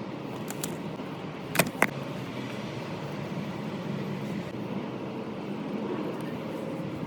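Steady low hum with a few short, sharp clicks, two of them close together about a second and a half in, as small parts of a Sherline-built Craftsman micro lathe are handled during disassembly.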